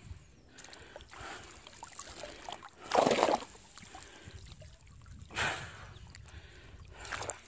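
Water splashing in surges about every two seconds as a small boat is paddled along. The loudest splash comes about three seconds in.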